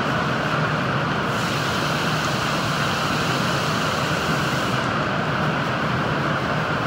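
Washdown hose nozzle shooting a water jet up against a ceiling-mounted unit and wall: a continuous hiss and spatter of water. The hiss turns brighter and sharper for a few seconds in the middle, then eases back.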